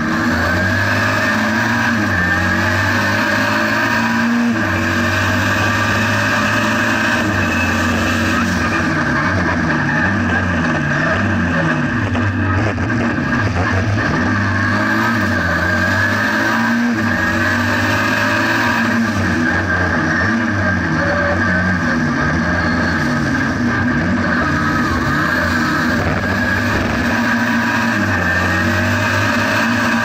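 Renault 5 GT Turbo's tuned 1.4-litre turbocharged four-cylinder engine, about 220 hp, heard from inside the cabin while the car is driven hard on track. The revs climb and drop again and again through gear changes.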